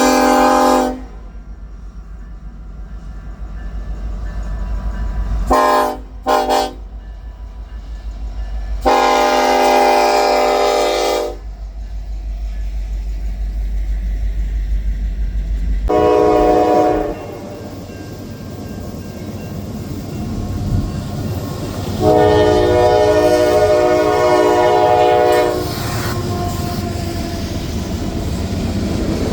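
Locomotive air horn sounding a series of blasts, long and short, each a chord of several notes, with the rumble of the approaching train building underneath in the second half.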